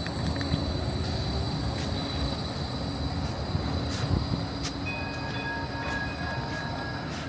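A light rail tram running on the Gold Coast line: a steady rumble with scattered sharp clicks and a faint high tone.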